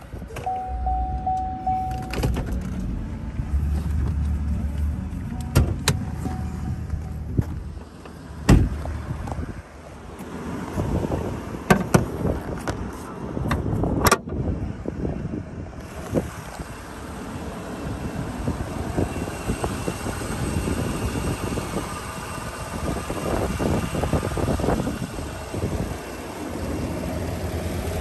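GMC Sierra 1500 pickup running, heard first as a low engine and road rumble from the cab while driving. A few sharp knocks follow partway through, then the engine idles steadily with a faint whine.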